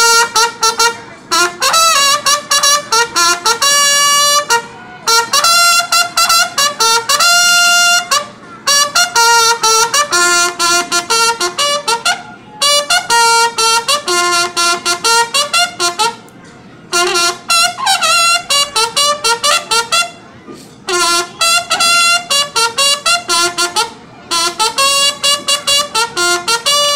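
A solo bugle playing military calls: phrases of loud, clear notes leaping between a few pitches, with fast repeated tongued notes, broken by short pauses.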